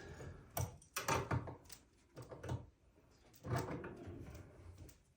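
A wrench tightening nuts onto the bolts of a flat-pack chair frame: several sharp metal clicks and knocks in the first second and a half, then softer scraping and handling sounds.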